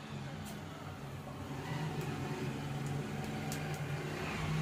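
Cumin seeds sizzling in hot mustard oil in a small aluminium pan, a soft hiss with a few light crackles that grows slightly louder, over a steady low hum.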